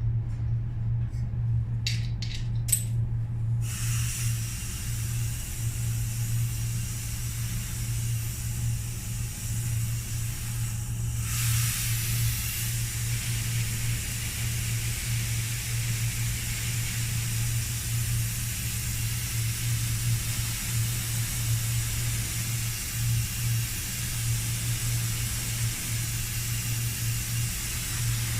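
Compressed-air paint spray gun hissing steadily as it sprays, starting a few seconds in after a few light clinks, with one short break about eleven seconds in, over a constant low hum.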